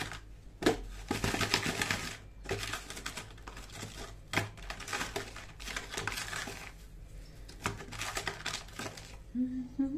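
Fried pestiños being rolled and rubbed by hand in sugar inside a plastic tub: a gritty rustling and scraping of sugar grains against pastry and plastic, coming in several bursts.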